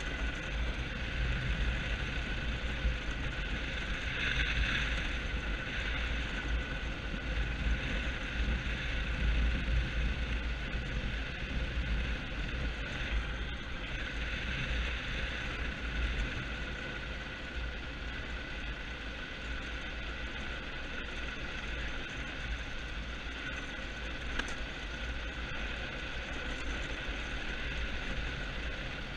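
Engineless soapbox cart on a go-kart chassis rolling downhill on a concrete road: steady tyre and rolling noise with wind buffeting the microphone.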